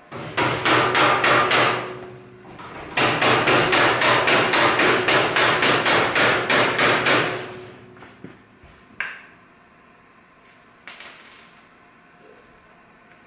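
Rubber mallet giving persuasion, driving a mounting bolt through the power steering rack mount. It strikes in a short quick run of blows, then in a longer run of about four to five blows a second, followed by a couple of light metallic clinks near the end.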